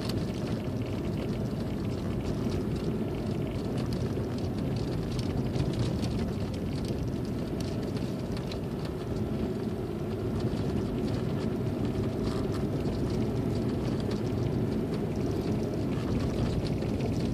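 A car driving slowly on a snow-covered road, heard from inside the cabin: a steady low engine and tyre noise with faint scattered clicks.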